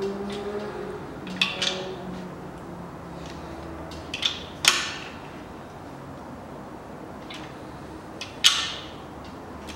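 Sharp metallic clicks and clinks of a hand wrench on crankshaft main bearing cap bolts as they are turned to final tightness. There are about five short clicks, spread out, with the two loudest in the middle and near the end.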